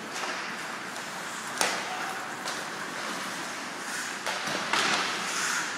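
Hockey skates scraping across the ice, with a sharp crack about a second and a half in and a few fainter knocks later.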